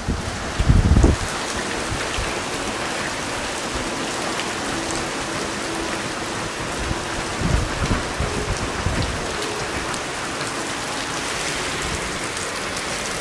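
Heavy rain pouring down onto a street, a steady hiss, with low rumbles about a second in and again around seven and a half seconds in.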